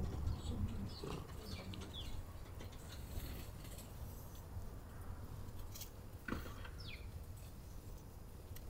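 Grey stray cat purring steadily as its head and neck are stroked, with a couple of short, faint bird chirps.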